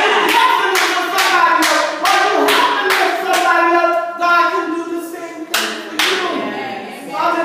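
Hand clapping in a steady rhythm, about two claps a second, under a woman singing into a microphone. The clapping drops out for about a second past the middle, then comes back.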